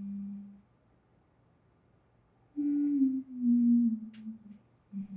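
A slow, soft melody of pure low notes: one short note at the start, then after a pause a run of notes stepping down in pitch, and a last short note near the end.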